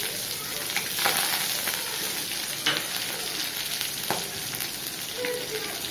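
Curry leaves, green chillies and grated ginger sizzling steadily in hot oil in a metal kadai as a tempering is sautéed, with a few sharp clicks.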